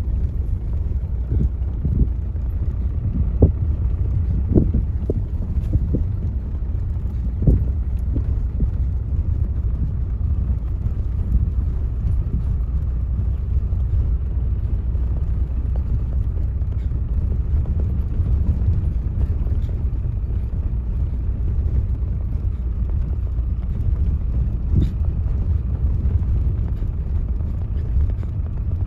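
Steady low rumble of a vehicle driving over rough ground, with a few short thumps in the first several seconds.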